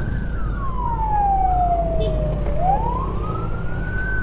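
Electronic wail siren sweeping slowly in pitch. It falls over about two and a half seconds, then rises again and starts to fall near the end, over the steady low rumble of a motorcycle riding.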